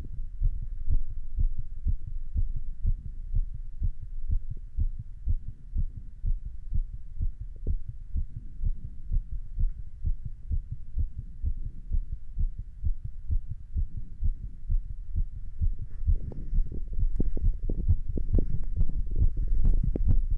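A person's heartbeat recorded up close, a steady run of low beats. About 16 seconds in the beats grow louder, with faint scratchy noise over them.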